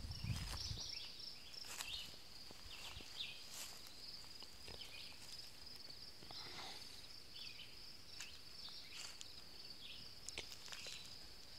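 Footsteps rustling through low grass and weeds, over a steady high-pitched insect chorus.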